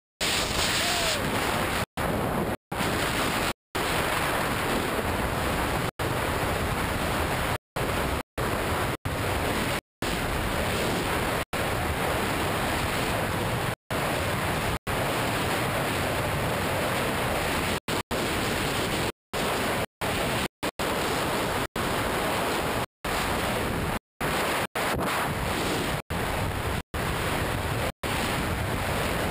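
Freefall wind blasting the camera microphone during a tandem skydive: a loud, steady rush of noise. It cuts out completely for a split second many times over, then snaps back.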